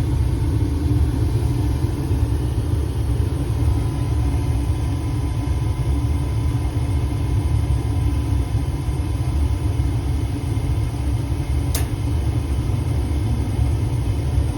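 Ducane gas furnace running after a repair to its control board, a loud, steady low rumble with a faint steady hum above it. A single sharp click sounds near the end.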